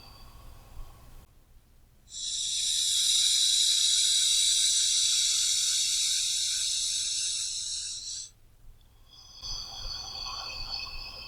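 One long, deep human breath lasting about six seconds, starting abruptly about two seconds in and tapering off toward the end. Soft background music with sustained tones plays before it and returns near the end.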